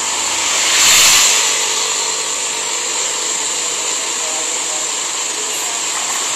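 Steady road traffic noise, an even hiss, swelling briefly about a second in.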